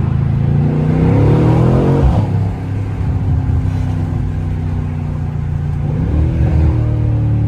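Mercedes-AMG C63 S engine pulling under acceleration, its pitch climbing for about two seconds before dropping sharply, then running steady. It climbs briefly again around six seconds in before it settles.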